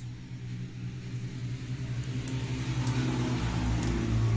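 A motor vehicle's engine running with a steady low hum, growing louder toward the end as it approaches.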